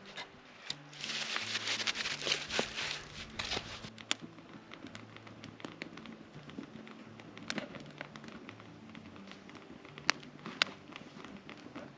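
Small wood campfire crackling, thick and busy for the first few seconds, then thinner with a few sharp pops, two of them close together near the end. Soft background music with slow held low notes plays underneath.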